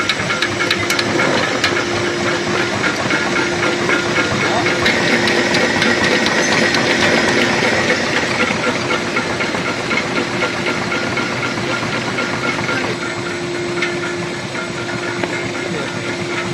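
ZP680C three-layer rotary tablet press running, pressing detergent tablets: a steady rushing machine noise with a rapid clatter of small clicks and a steady hum.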